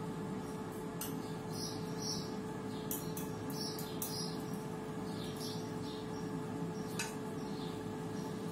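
A running air fryer hums steadily with its fan while fish cooks inside. Short high chirps come every second or so. There are a couple of light clinks as a fork mixes salad in a glass bowl.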